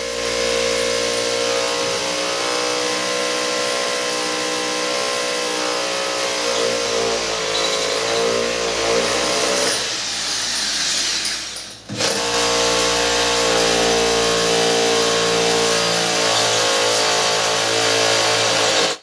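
Electric drill boring holes into a ceramic-tiled wall for the mounting bolts, its motor running steadily under load. A little past halfway it winds down briefly, then starts again and runs until it cuts off suddenly at the end.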